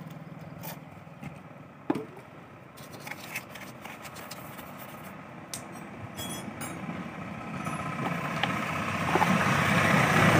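Light clicks and knocks of a plastic motorcycle air filter cover being handled, then a broad rush of noise that swells steadily toward the end.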